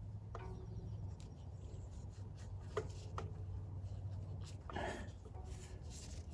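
Faint rubbing and a few light clicks of gloved hands pushing a rubber fuel line onto a small-engine carburetor's fuel inlet, over a low steady hum.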